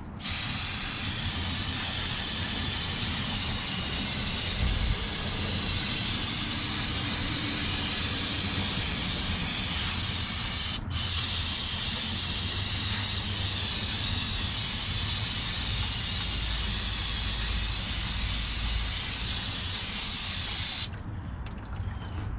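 Steady hissing spray played over a vintage car's greasy drum brake assembly to clean it for disassembly. It runs for about eleven seconds, breaks for an instant, then runs about ten seconds more and cuts off.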